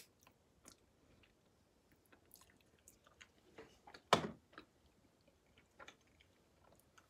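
Close-up chewing and small wet mouth clicks from eating saucy chicken wings, with scattered short smacks. About four seconds in there is one louder thump.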